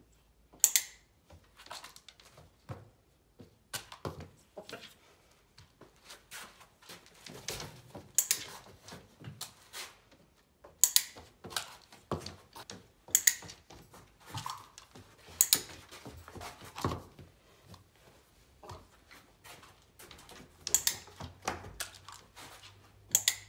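A hen pecking feed from a small plastic cup: irregular light taps and ticks, with a few louder, sharp clicks several seconds apart.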